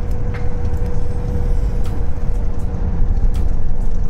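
Steady low road and engine rumble inside a Toyota car's cabin at highway speed, with a faint steady hum above it and a few light clicks.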